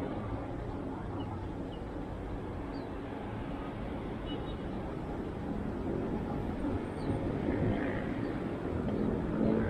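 Steady low outdoor background rumble, with a few faint high chirps scattered through it.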